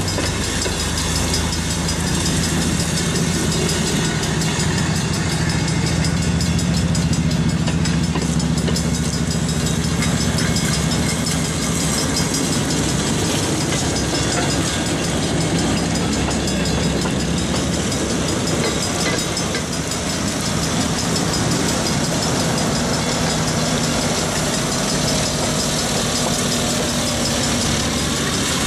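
Several railway speeders (small track motor cars) passing one after another, their small engines running steadily.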